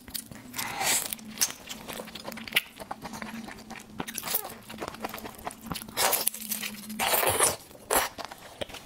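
Close-miked eating sounds: sucking and slurping at a cooked red shrimp's head and shell, with wet smacking clicks and chewing. Several longer slurps stand out, the loudest near the end. A faint steady low hum underneath stops about seven seconds in.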